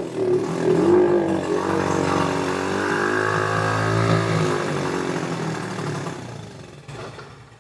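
Yamaha TT-R90's small single-cylinder four-stroke engine running with its pitch wavering up and down, then dying away near the end. It runs fast and rich on a freshly swapped carburettor: the idle is way too high and it is getting way too much fuel, while a hand over the open intake chokes it.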